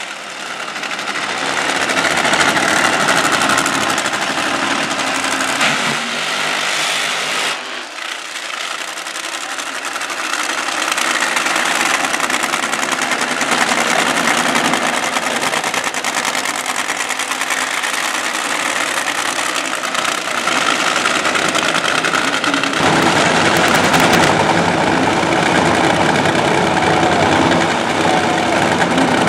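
Supercharged nitromethane V8 engines of NHRA Funny Cars running loud through a burnout and on the track. The sound changes abruptly about 8 seconds in and again at about 23 seconds.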